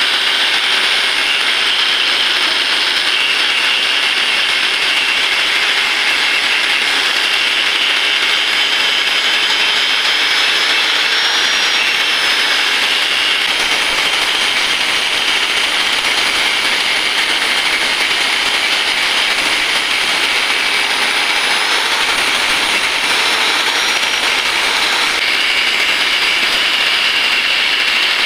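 Electric angle grinder running with a steady high whine, its disc grinding down the aluminium weld over the oil drain bolt hole of a Honda Vario crankcase. This is the tidying of the fresh weld, and the pitch wavers slightly as the disc bites.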